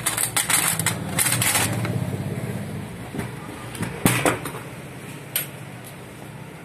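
Loose steel sewing-machine parts clinking and rattling as they are sorted in a metal tray, then two sharp metallic knocks as parts are handled at the machine head, over a low hum that fades out about halfway through.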